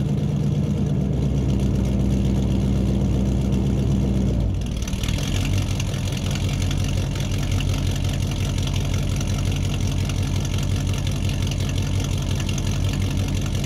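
An engine idling steadily. About four and a half seconds in, the sound changes to a pulsing idle with more hiss.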